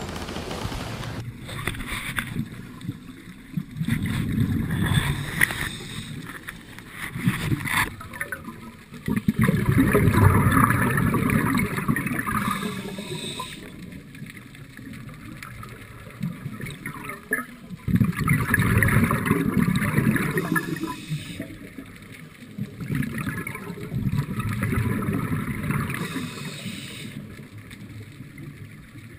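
Scuba regulator breathing heard underwater: loud bubbling bursts of exhaled air every few seconds, with quieter stretches between.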